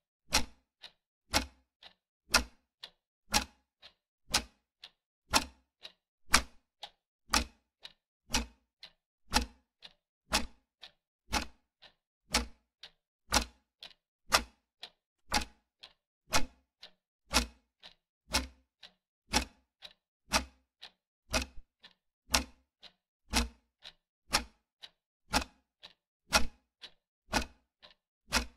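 Clock ticking sound effect marking a quiz countdown timer: an even tick-tock of about two strokes a second, alternating a louder and a softer click.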